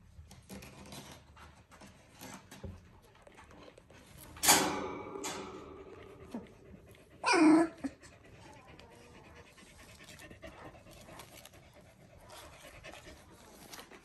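Three-week-old Border Collie puppies scrabbling and rustling on their bedding, with two loud puppy yelps, one about four and a half seconds in and a shorter one dropping in pitch about seven and a half seconds in.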